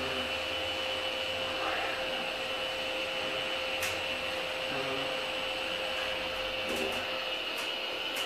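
Orona machine-room-less traction elevator car travelling, a steady whirring hum with a constant high whine.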